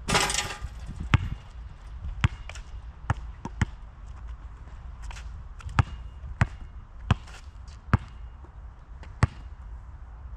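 A Molten GB3800 rubber basketball hits the hoop with a short rattling crash right at the start. It then bounces sharply on an asphalt court about nine times at irregular intervals while it is gathered and dribbled.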